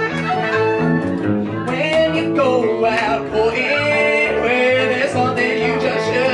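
Live country string band playing an upbeat tune: strummed guitar over an upright bass line, with a fiddle carrying the melody.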